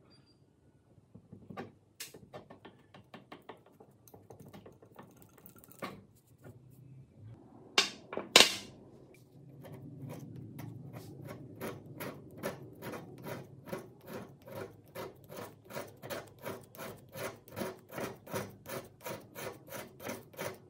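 Metal clinks and knocks from a rusted bench vise being taken apart, with two sharp knocks about eight seconds in. Then a steel hand tool scrapes rust off a removed vise jaw in quick, even strokes, about four a second.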